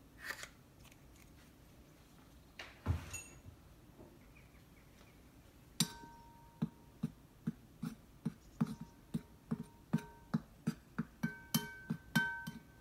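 A hand mixing flour in a white bowl with the fingers. From about halfway through, the hand knocks against the bowl about three times a second, and the bowl rings briefly after many of the knocks. Before that there are two separate clicks.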